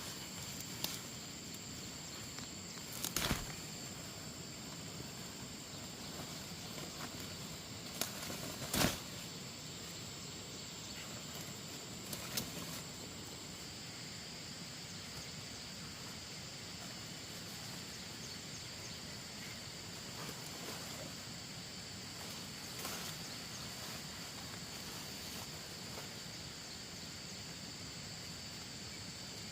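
Outdoor ambience with a steady high-pitched insect drone and a few scattered knocks or handling sounds, the loudest about nine seconds in.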